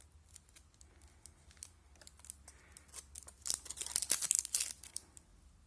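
Wrapping being handled, crinkled and torn open by hand, with scattered crackles and a denser burst of rustling and tearing about three and a half seconds in, as two eyeshadow brushes are unpacked.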